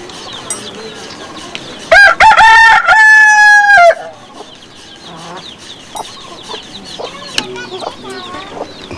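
A rooster crows once, about two seconds in: a few short stepped notes and then one long held note of about a second that cuts off. Faint scattered chirps follow.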